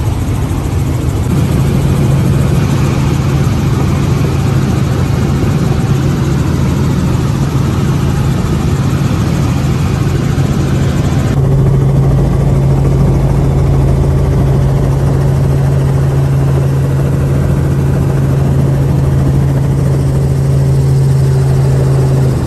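Robinson R44 helicopter running: a steady loud drone of engine and rotor with a strong low hum, heard first from inside the cabin in flight. About halfway through the higher hiss drops away and the low hum carries on.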